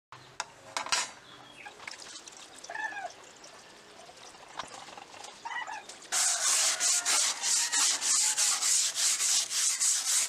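A few light clicks and quiet handling, then about six seconds in hand sanding starts: quick back-and-forth rubbing strokes, about four a second.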